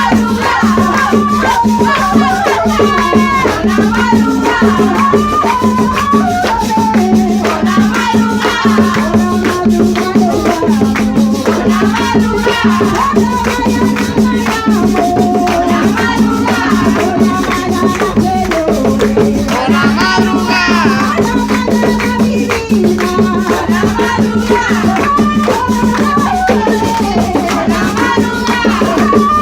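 Tuna ensemble playing: a melody over continuous shaken-rattle percussion, steady and loud.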